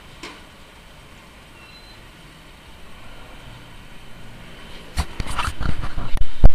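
Low road-traffic noise, then about five seconds in a rapid run of loud bangs and knocks, loudest near the end: a dump truck striking and scraping against a flatbed tow truck beside it.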